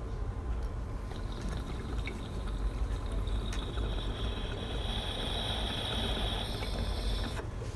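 Water bubbling through a glass dab rig as a long hit is drawn through it. A thin, steady high tone joins about three seconds in, and the bubbling and tone stop abruptly near the end as the hit ends.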